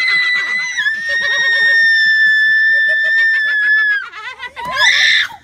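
A girl's long, high-pitched scream at a turtle placed on her, held for about four seconds and dropping slightly in pitch about a second in, then breaking off, followed by a short second shriek near the end.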